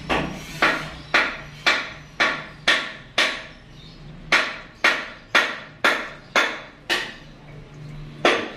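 Sharp, ringing strikes about two a second, in runs of six or seven separated by pauses of about a second, each dying away quickly.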